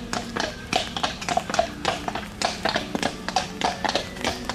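Horse hooves clip-clopping at a walk: an irregular run of hard knocks, several a second.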